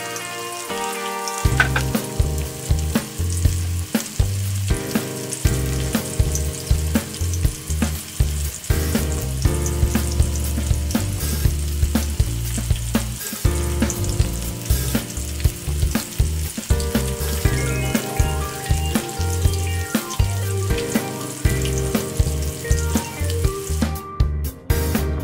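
Battered chicken pieces deep-frying in hot oil in a wok: a steady sizzle with many small pops of the oil. Background music with a steady bass beat plays underneath.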